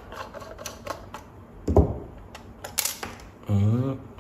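Hand-handling clicks and knocks from the plastic case of a Yokogawa 2414 analog multimeter being opened up, a string of separate sharp clicks with a louder thump a little under two seconds in and a sharp click near three seconds.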